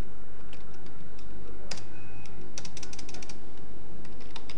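Computer keyboard typing: scattered single keystrokes, then a quick run of about ten keystrokes a little past the middle, over a low steady hum.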